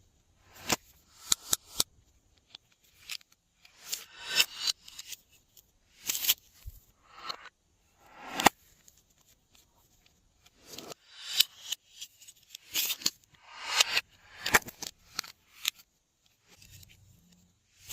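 Glossy slime being squeezed and stretched by hand, giving sticky crackles and pops in irregular bursts with short pauses between.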